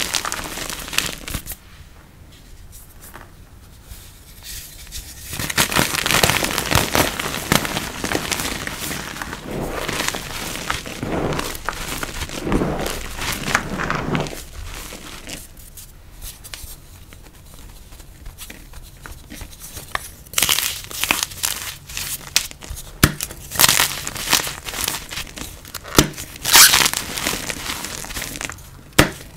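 Soft, crispy chalk blocks crumbling and being crushed by hand in a bowl of loose powder: irregular dry crunching and crackling with a soft sift of powder. There are quieter spells a few seconds in and again past the middle.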